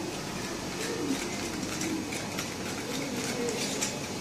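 Small metal spatula stirring pink acrylic in a small mixing cup, making faint light clicks and scrapes against the cup, over a low wavering background sound.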